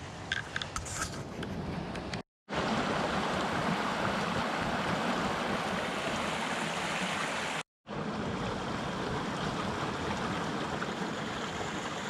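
Small forest stream rushing and splashing steadily over stones and debris. It starts after about two seconds of quieter outdoor background with a few faint clicks, and cuts out for a moment twice, about two and about eight seconds in.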